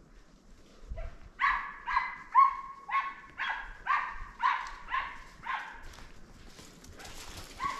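A German Wachtelhund barking in a steady run, about two barks a second, giving tongue while working game. The barking starts about a second and a half in, pauses for about two seconds near the end, then starts again.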